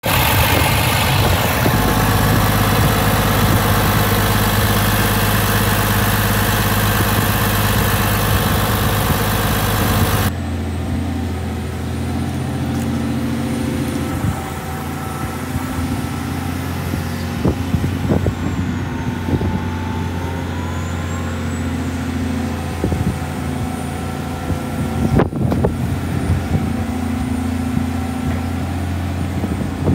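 Caterpillar 336D excavator's C9 six-cylinder diesel engine running steadily, loud and close at the open engine bay for about the first ten seconds. After that the engine is heard from further off while the boom and bucket are worked, with a few clanks.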